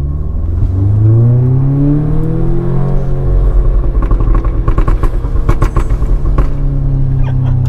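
Audi S3's turbocharged 2.0-litre four-cylinder, remapped and with an aftermarket exhaust, revved up in first gear toward about 5,000 rpm. The throttle is then released, and the exhaust fires a rapid machine-gun string of pops and crackles for about three seconds as the revs fall. It then settles to a steady lower engine note near the end.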